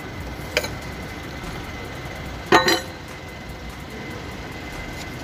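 A cup-type oil filter wrench being pulled off a freshly tightened oil filter. There is a light click, then about two and a half seconds in a short metallic clink and clatter with a brief ring.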